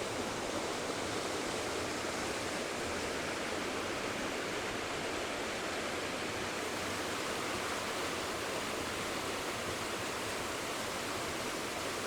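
Waterfall: a steady, even rush of falling water with no let-up.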